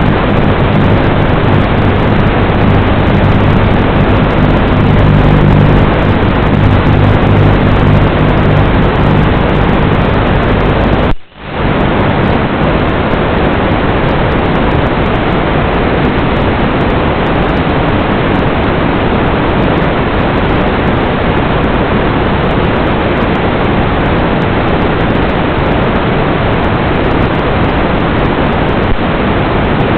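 Loud, steady static hiss from an FPV video receiver's audio channel, with a faint low hum under it at first. It cuts out for a moment about eleven seconds in, then carries on as before.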